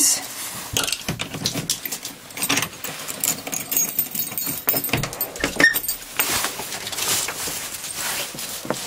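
Keys jangling and clicking in a door lock as a wooden back door is unlocked and opened, with irregular clicks and rattles from the key and latch.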